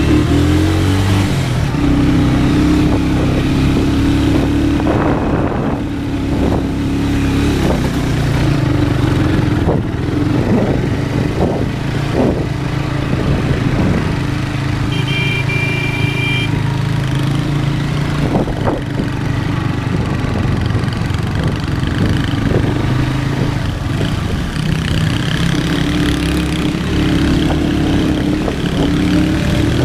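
Small motorcycle engine running continuously, its pitch rising and falling with the throttle as it climbs a rough dirt trail, with scattered short knocks throughout.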